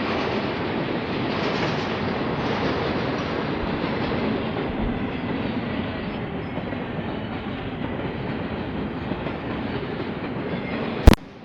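Freight train cars rolling past, a steady rumble and clatter of steel wheels on the rails that eases slightly partway through. A single loud sharp click near the end, followed by a brief drop in level.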